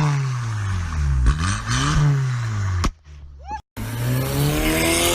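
Audi A4 B7 2.0T turbo four-cylinder with a 3-inch downpipe, revving up and falling back several times. The sound cuts out briefly about three seconds in.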